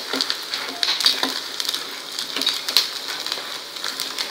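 Sago pearls (sabudana) deep-frying in hot oil, a steady sizzle with crackling pops, while a steel spoon stirs them and clicks against the steel frying basket.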